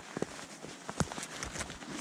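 Scattered light clicks and knocks over a faint hiss, the loudest about a second in. These come from a stationary skier's gear: skis, poles and the hand-held camera.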